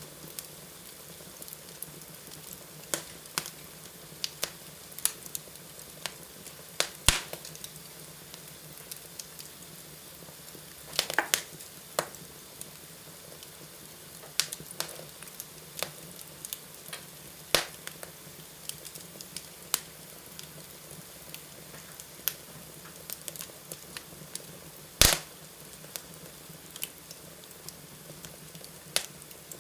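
Wood fire in a fireplace crackling: irregular sharp pops and snaps over a steady low background, with a few louder cracks, a quick cluster of them about eleven seconds in, and the loudest pop near twenty-five seconds.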